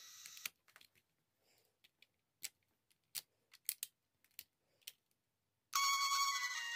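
Music from the T-ARTS Showa Mini Boom Box toy's tiny speaker cuts off, followed by a series of sharp plastic clicks as its piano-key controls are pressed. Near the end the music starts again, thin and tinny with no bass.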